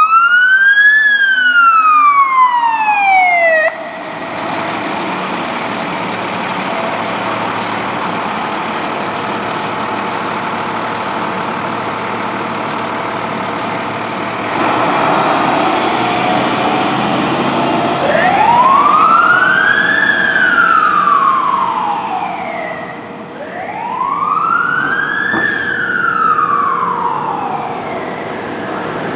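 Fire engine's siren wailing: one rise and fall that cuts off short a few seconds in, then the truck's engine running, louder from about halfway as it pulls out. Two more slow wails rise and fall near the end.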